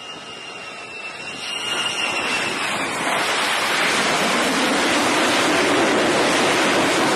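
F-35C's F135 turbofan jet engine: a high whine falling slightly in pitch on final approach, then from about three seconds in a loud, steady rush of jet noise as the jet touches down and catches the carrier's arresting wire.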